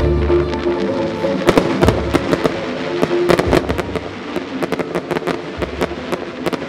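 Fireworks firing and bursting in quick succession, with a dense run of sharp cracks and pops from about a second and a half in. Music plays underneath.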